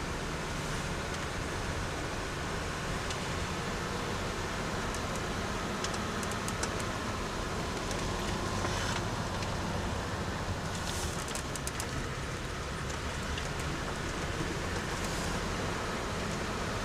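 A vehicle driving: a steady engine and road noise, with scattered clicks and rattles now and then.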